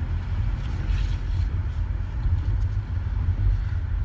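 Low, steady rumble of a car heard from inside the cabin.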